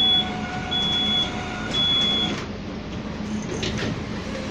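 Bus warning beeper sounding high beeps about once a second as the automatic wheelchair ramp is deployed, stopping about two and a half seconds in. A few clicks follow as the exit doors slide open for the Masats RT1 telescopic ramp.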